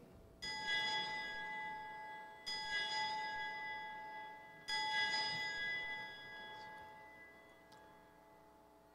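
Altar bell struck three times, about two seconds apart, each strike ringing on with a clear high chord that slowly fades. This is the consecration bell marking the elevation of the chalice at Mass.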